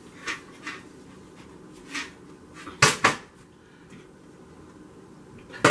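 Metal cookware being handled: a few clunks and knocks of a pressure canner and a stockpot and its lid, the loudest a double clunk about three seconds in and another near the end.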